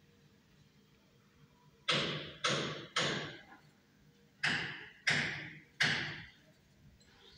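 Six sharp knocks in two sets of three, each ringing out briefly.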